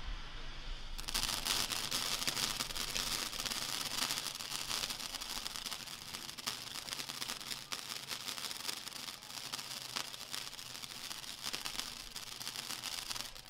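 Handheld firework fountain spraying sparks: a steady hiss thick with fast crackling, growing much stronger about a second in and stopping abruptly near the end.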